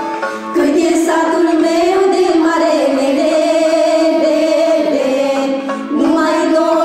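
A group of girls and a woman singing a Romanian folk song together in one melody line. The voices come in about half a second in and pause briefly for breath near the end before going on.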